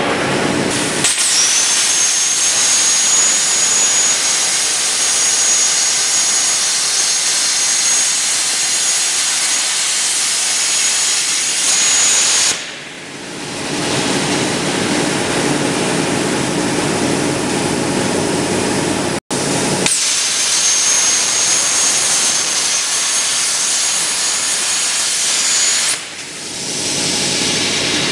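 CNC plasma torch cutting steel tube: a loud steady hiss with a thin high whistle over it. The hiss dips for a second or so about 12 seconds in and again near the end, then picks up again. There is a momentary dropout about 19 seconds in.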